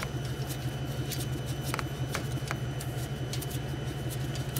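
A few light clicks and rustles as a new oxygen sensor is turned in by a gloved hand, threading into its exhaust-pipe bung, over a steady low hum.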